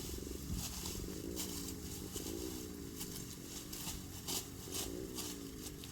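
Hand sickle swishing through grass in quick strokes, about two a second, over a low wavering hum.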